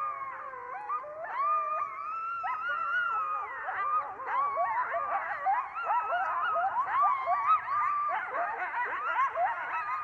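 Coyotes howling and yipping: long wavering howls at first, then from about four seconds in a dense chorus of short rising and falling yips. It sounds like a whole pack, but it is probably only two or three coyotes.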